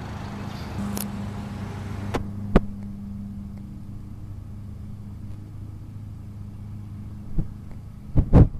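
A steady low machine hum, with a few sharp knocks and clicks on top; the loudest ones come in a quick cluster near the end.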